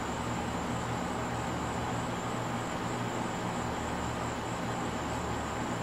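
Steady outdoor night ambience: a constant low hum with a thin, high, steady whine above it, and no distinct events.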